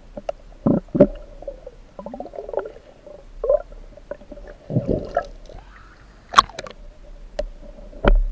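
Muffled underwater sound picked up through a waterproof camera housing: irregular knocks and bumps with gurgling water, the sharpest knock about six seconds in, over a faint steady hum.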